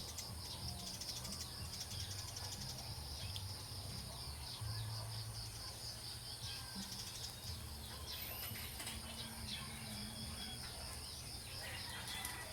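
Insects trilling in a steady high-pitched pulsing chorus, with scattered short bird chirps and a low background rumble.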